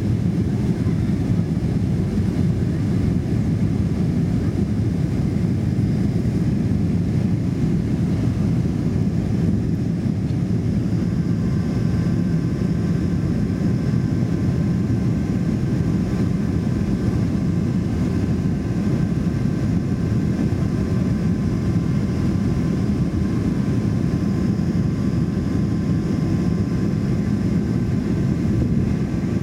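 Boeing 747-400 cabin noise during the climb-out after takeoff: the steady roar of the four engines at climb power and the rush of air past the fuselage, heard from a window seat over the wing. A faint steady high tone joins in about a third of the way through.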